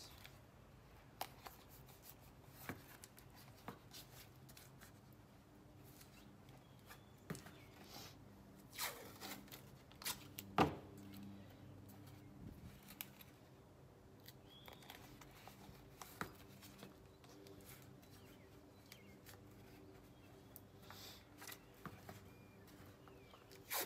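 Blue painter's tape being handled: strips pulled and torn off the roll and pressed onto a helmet shell, making faint scattered crackles and short rips, the loudest about ten and a half seconds in.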